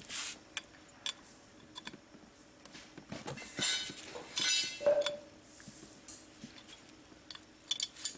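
Steel spanners clicking and clinking against the bolts of a twin-cylinder air compressor pump and against each other as the bolts are worked, with a few louder ringing clinks near the middle.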